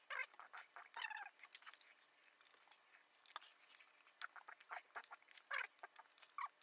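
A person eating at close range: quiet, irregular wet smacks and clicks of chewing.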